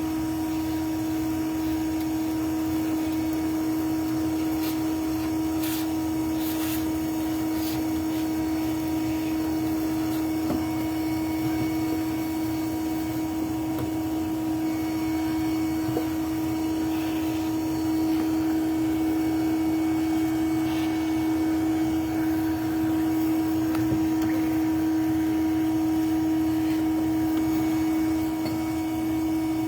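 A vacuum-type electric motor running with a steady, unchanging hum, as used to suck live bees off the comb during a hive extraction.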